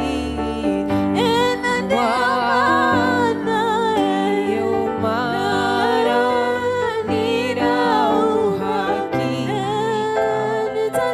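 Swahili gospel worship song: a singing voice holding long, wavering notes over a sustained musical backing.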